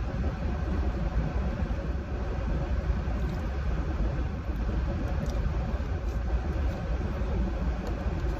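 Steady running noise of a parked car with its air conditioning on: the engine idling as a low hum under the even rush of the A/C blower.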